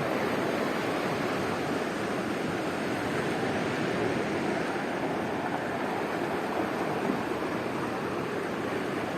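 Ocean surf: a steady rushing wash of breaking waves, with no single crash standing out.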